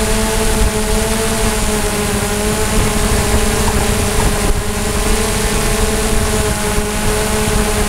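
DJI Mavic drone's motors and propellers whining steadily in flight, several steady pitches over a loud rush of wind noise, heard from the camera carried on the drone.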